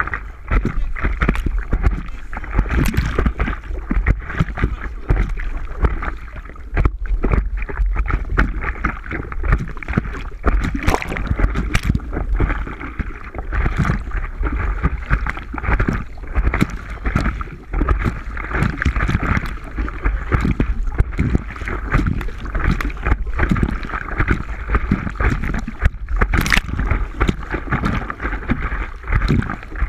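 Wind buffeting the microphone, a steady low rumble, over water splashing and lapping in many short irregular bursts.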